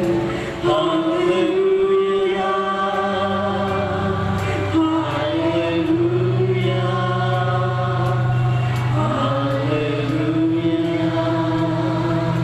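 Worship singing: a slow sung melody over held low notes, with a light, steady ticking beat.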